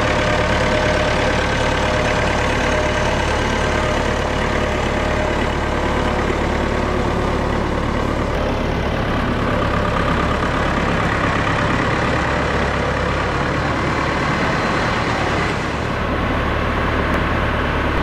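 Oxbo Pixall sweet corn harvester running steadily: its engine hum under the continuous rush of the leaf-cleaning blowers.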